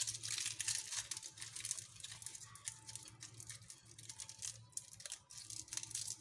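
Aluminium foil crinkling as it is wrapped and crimped by hand around a drumstick bone: a dense run of crackles in the first second, then lighter scattered rustles.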